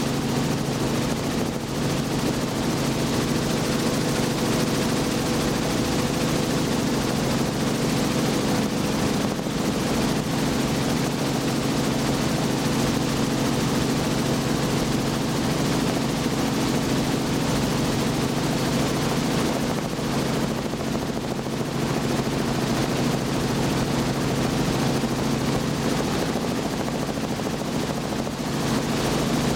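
Robinson R44 helicopter in cruise, heard from inside the cabin with the doors off: the rotor and piston engine make a steady drone under heavy wind noise through the open doorway.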